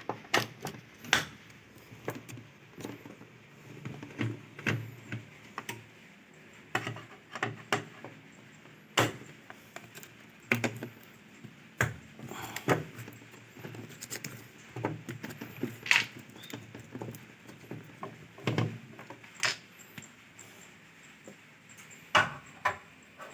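Irregular metallic clicks, clinks and knocks of hand tools and loose parts as bolts are undone and panels of a Polytron washing machine are taken apart.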